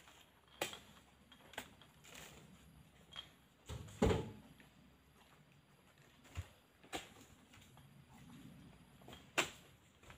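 Irregular sharp knocks and heavy thuds, about seven in all, with the loudest and deepest thud about four seconds in. These are oil palm fruit bunches landing on a truck's load as they are pitched up on a long pole.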